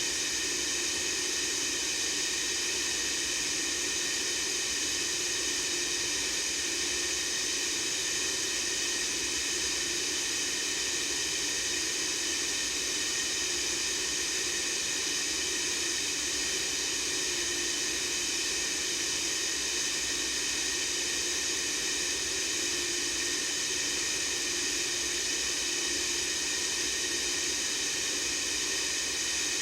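White-noise sound effect: a steady, unchanging hiss that is brightest in the high range.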